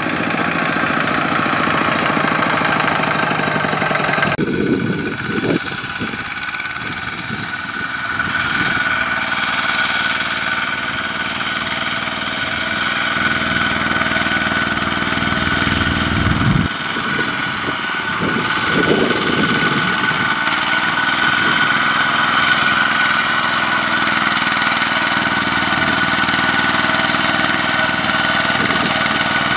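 Kubota RT140 single-cylinder diesel engine of a two-wheel walking tractor running steadily under load, hauling a trailer of rice sacks through mud. There is an abrupt shift in the sound about four seconds in.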